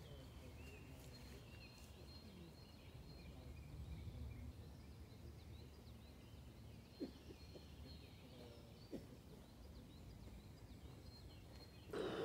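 Quiet woodland ambience: faint, distant bird calls over a low background rumble, with two soft clicks about two seconds apart in the second half. A louder rushing noise cuts in right at the end.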